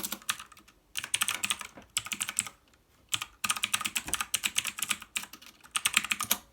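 Blue clicky mechanical key switches on a VictSing tenkeyless keyboard being typed on fast, in rapid runs of crisp clicks, with a pause of about a second near the middle.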